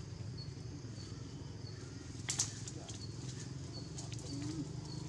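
Forest ambience: a short, high chirp repeating evenly about every two-thirds of a second over a steady low hum, with one sharp snap a little over two seconds in.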